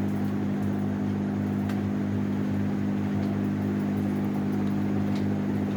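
Hot-air heat gun blowing steadily, its fan motor giving a constant low hum over a rush of air.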